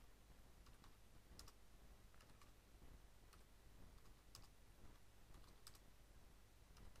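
Faint computer keyboard typing: about ten soft keystroke clicks, irregularly spaced, over a faint low hum.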